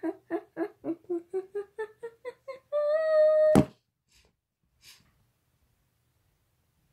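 A child humming a quick run of short notes that climb in pitch, ending on one longer held note. A sharp click cuts it off a little after three seconds in, and then it goes quiet.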